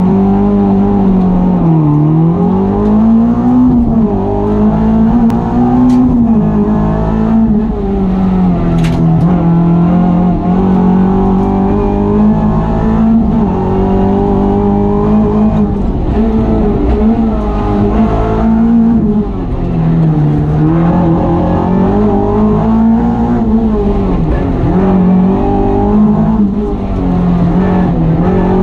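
Renault Clio Ragnotti's four-cylinder engine, heard from inside the cabin, driven hard up a hill climb. Its note rises under throttle and drops sharply several times for gear changes and braking into bends.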